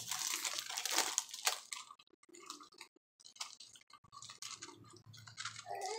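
Crisp cream-filled wafer rolls being chewed with crunchy clicks, a quick run of crunches in the first couple of seconds, then sparser ones.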